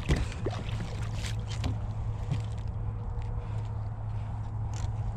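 Light taps and small water sounds at a kayak as a struggling trout is handled, over a steady low hum.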